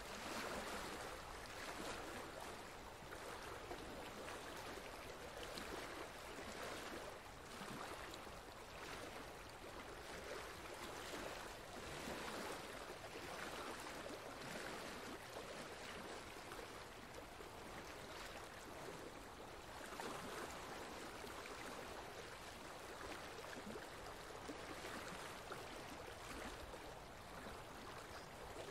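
Faint, steady rush of running water, swelling and easing every second or two.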